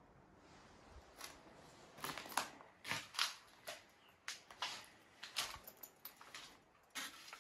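Footsteps crunching over a floor littered with debris, flaking plaster and scattered paper: an irregular string of sharp crunches and crackles that starts about a second in, over a quiet room.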